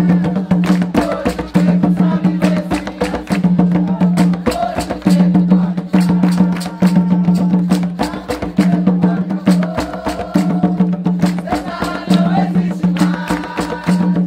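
Hand drums beaten in a fast, steady rhythm of sharp strokes, with a group singing along.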